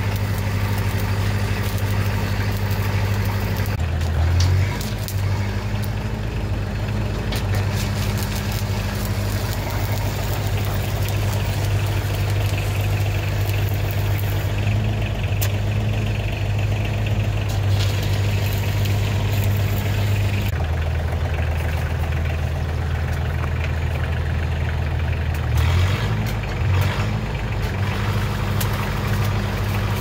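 1973 Lincoln arc welder running with a steady low hum that shifts in pitch a few times as the weld goes on, with the crackle of the welding arc at times.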